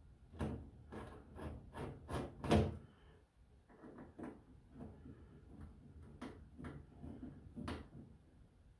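Hand tool clicking and knocking against a one-shot lube oil manifold as it is fastened to a mill's sheet-metal stand: a quick run of light knocks over the first three seconds, the loudest about two and a half seconds in, then scattered clicks.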